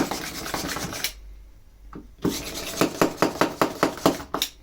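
Stanley Yankee spiral ratchet screwdriver pumped hard to drive a screw into wood: rapid rasping strokes, a pause of about a second, then a fast, even run of strokes at about six a second.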